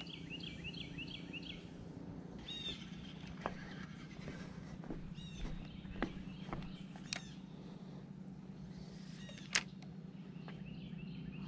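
Songbirds calling: a quick run of rapid high chirps at the start and again near the end, with a few single chirps in between, over a low steady hum. A few sharp clicks, the loudest one about ten seconds in.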